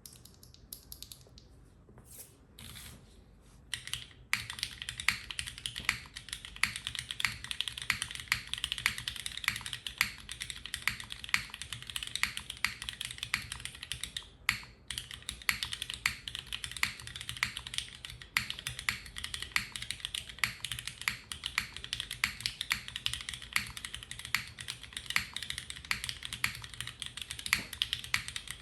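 Typing on a Neo65 Cu custom mechanical keyboard with modded Cherry Oldblack linear switches under 43studios Opblack tops and rubber keycaps, built plateless with no foam. A few scattered keystrokes at first, then steady rapid typing from about four seconds in, with a brief pause about halfway.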